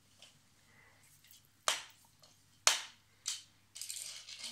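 Three sharp clicks of small plastic and die-cast toys knocking together as they are handled, a second or so apart. Near the end, a small toy car is pushed scraping and rolling across the floor.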